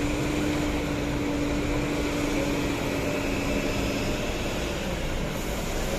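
Steady drone of coach buses idling side by side, with a steady hum that fades out about four seconds in.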